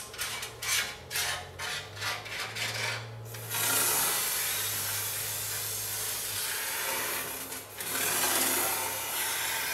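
Eastwood aerosol coating can, first a run of quick rattling clicks from its mixing ball as it is shaken, then sprayed in two long, steady hisses through its extension wand into the heater channel, with a short break about seven seconds in.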